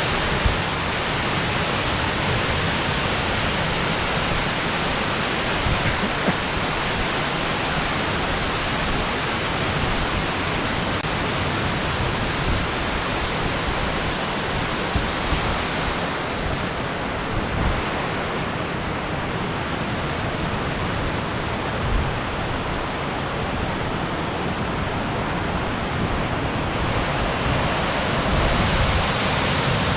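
Kuang Si waterfall: water falling and splashing into its pools, a steady rushing that dulls a little past the middle and brightens again near the end.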